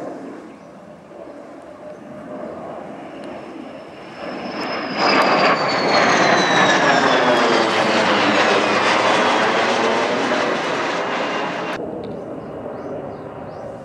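F-16 fighter jet's engine passing overhead: the noise builds up, then comes a loud pass with a whine that falls steadily in pitch as the jet goes by. It cuts off suddenly near the end, leaving a fainter aircraft sound.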